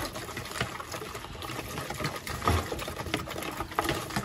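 Whisk beating a thin vinegar dressing in a plastic bowl: quick, uneven splashing and swishing of the liquid, with light clicks of the whisk against the bowl.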